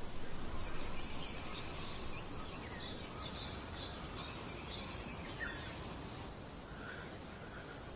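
Jungle ambience: a steady low rumble with many short, high bird chirps and twitters that thin out after about six seconds.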